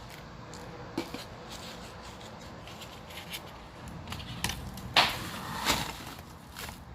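A few sharp clicks and knocks of objects being handled, over a steady low background; the loudest knock comes about five seconds in, with another shortly after.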